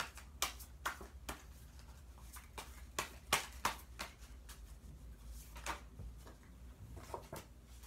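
Tarot cards being shuffled by hand, a run of short, irregular card slaps and clicks.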